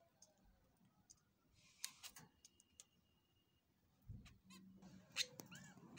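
Mostly near silence with a few faint clicks and a faint thin tone in the middle; near the end a couple of soft, short chirps from a Java sparrow.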